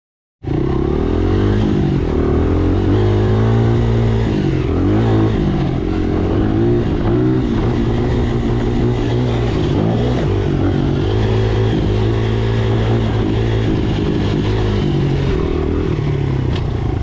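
Dirt bike engine being ridden, cutting in abruptly about half a second in, its pitch rising and falling over and over as the throttle is opened and closed and it runs through the gears.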